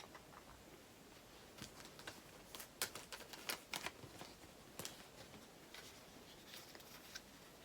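Faint crinkles and light clicks of plastic blind-bag packaging and acrylic cards being handled, scattered through the middle of the stretch.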